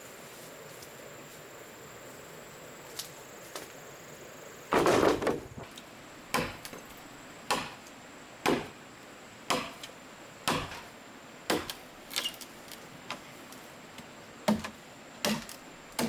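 Chopping strikes on wood, starting about five seconds in and going on at about one blow a second, the first blow the loudest.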